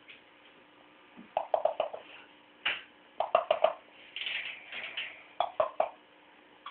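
A cat chirping in quick runs of three to five short chirps, repeated a few times, with a softer breathy stretch in the middle.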